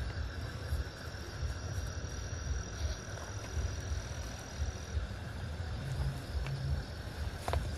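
Night insects calling in a steady high-pitched drone over a low rumble, with a couple of faint clicks near the end.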